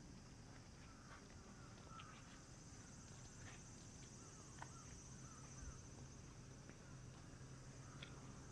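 Faint summer-night ambience: a steady high-pitched insect chorus, with a few soft clicks.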